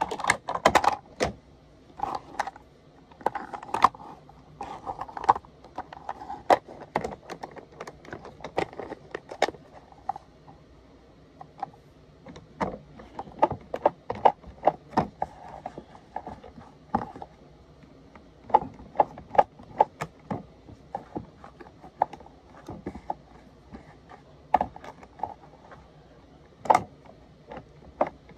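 Hard plastic toy parts of a Mighty Fleet Titans toy garbage truck clicking and clattering as its grabber arm is worked by hand and knocks against a small plastic garbage can. Irregular clicks and knocks, several a second at times.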